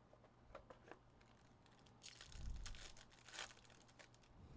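A trading-card pack's wrapper being handled and torn open, crinkling and tearing, faint, with a soft knock about halfway through.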